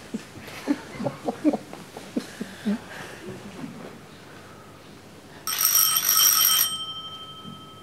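An electric doorbell rings once for about a second, several high tones at once, then fades away. Before it come a few soft thuds of movement.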